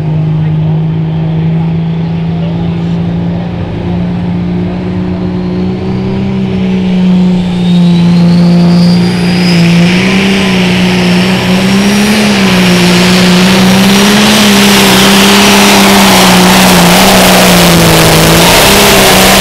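International Harvester 1566 pulling tractor's turbocharged diesel idling at the hook, then revving up with a high whistle climbing in pitch from about six seconds in. From about nine seconds it runs at full throttle under load as it pulls the sled, engine pitch wavering.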